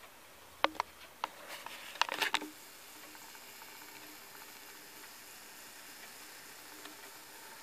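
A few sharp clicks in the first second or so, then a short rattling clatter of clicks, followed by a faint steady hiss while the Pioneer PL-A25 turntable runs with the record spinning.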